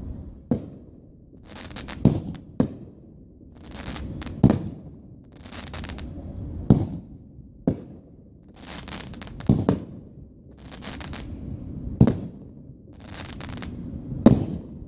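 Consumer aerial fireworks going off: about nine sharp bangs, one every second or two, with bursts of crackling and a steady hiss between them.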